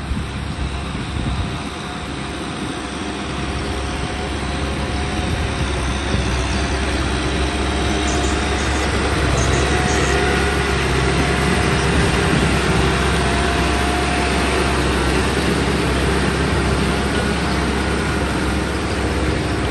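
Kubota M6040 tractor's diesel engine running steadily, growing louder over the first few seconds and then holding even.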